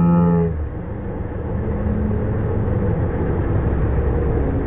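Volkswagen Amarok's engine pulling under load as the ute climbs a rutted, muddy slope: a steady low rumble. A brief held tone sits over it in the first half-second.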